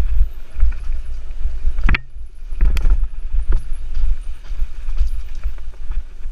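A mountain bike rolling fast over rough dirt singletrack: a constant low rumble of wind buffeting the bike-mounted microphone, with the bike clattering and knocking over roots and rocks. Two harder knocks stand out, about two seconds in and again just under three seconds in.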